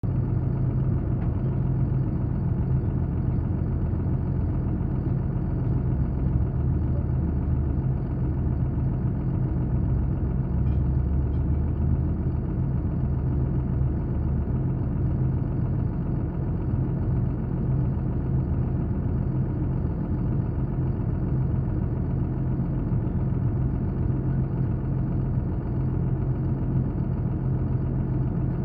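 Engine idling steadily, a low even hum with no revving.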